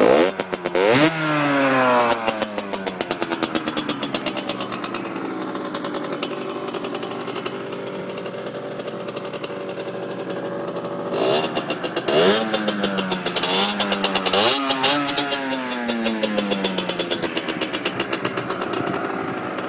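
Beta RR 50 motard's 50cc two-stroke single running and being revved: the revs drop and pick up again near the start, hold steady through the middle, then rise and fall several times in the second half.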